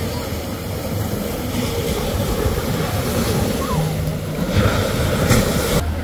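Beach ambience: steady noise of surf and wind, with a low rumble and faint voices in the background.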